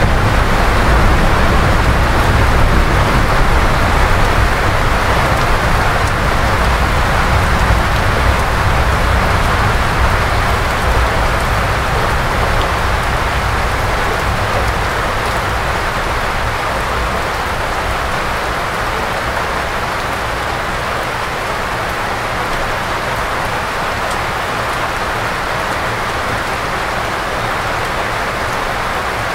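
Heavy rain falling steadily on a forested hillside, a dense even hiss. A low rumble underneath dies away over the first ten seconds or so, and the rain eases off slightly.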